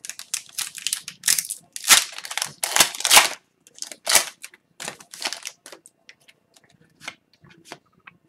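Foil wrapper of an Upper Deck hockey card pack being torn open and crinkled by hand, loudest in the first three seconds, then lighter crinkles and rustles as the cards are slid out of it.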